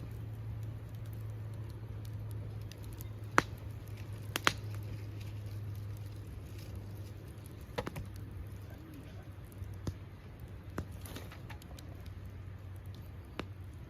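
Wood campfire crackling, with scattered sharp pops of burning wood over a steady low hum. The two loudest pops come about three and a half and four and a half seconds in.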